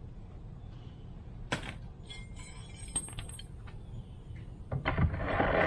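Light metallic clinks and taps, as of steel latch parts being handled, with a louder rough, noisy burst of sound near the end.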